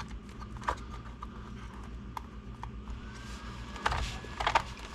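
Light clicks and knocks of small RC car parts being handled and fitted into the chassis, with a few louder knocks close together about four seconds in.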